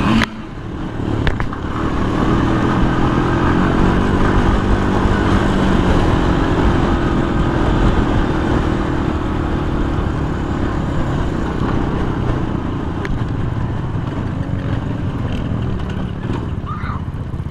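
Sport ATV engine running steadily while the quad is ridden across sand. It picks up over the first couple of seconds and eases slightly toward the end.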